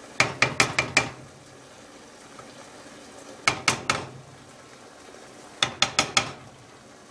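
A wooden spoon knocks against the side of a metal saucepan of boiling soup, in three quick runs of four or five knocks with a short metallic ring. The soup bubbles steadily underneath.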